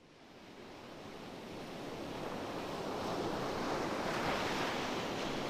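Steady rush of falling water from a waterfall, fading up from silence over the first few seconds.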